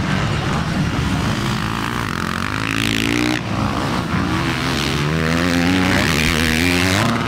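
Motocross dirt bikes racing, their engines revving hard: the pitch climbs under throttle and drops away at each shift or throttle chop, with more than one bike heard at once.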